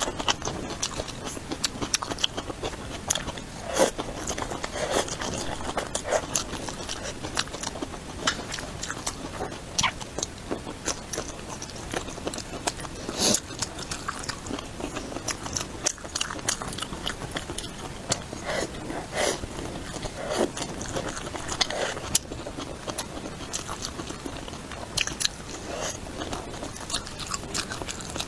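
A person eating close to the microphone, biting and chewing with irregular crisp clicks and wet mouth sounds.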